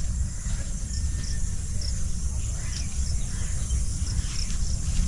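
Rural outdoor ambience: insects shrilling in a thin steady high drone, with scattered short chirps, over a low steady rumble.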